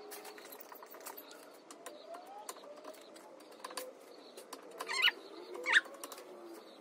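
Plastic spreader working body filler over a steel car panel: light scrapes and clicks throughout, with two louder short squeaks about five and six seconds in. A pigeon or dove coos in the background.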